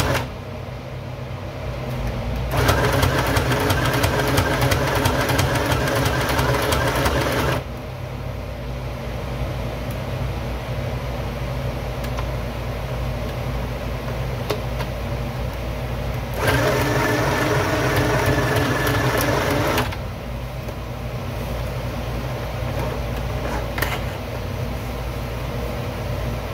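Small electric domestic sewing machine edge-stitching bias binding onto fabric, in two runs: one of about five seconds, then, after a pause, a shorter one of about three and a half seconds. A steady low hum lies underneath, and there is a single click near the end.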